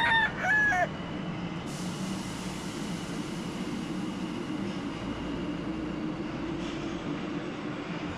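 Tokyo Metro Ginza Line subway train pulling out of an underground platform, running with a steady rumble and hiss. It opens with a short, loud crowing call that stops about a second in.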